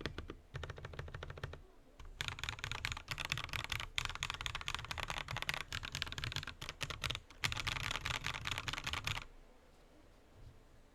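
Fast typing on a mechanical keyboard with Akko Jelly Black linear switches and XDA-profile keycaps: quick runs of key clacks with two brief pauses, stopping shortly before the end.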